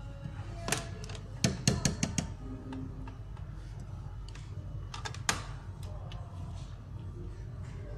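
Sharp clicks and knocks over a steady low hum: one just under a second in, a quick run of about five a second and a half in, and two more a little after five seconds.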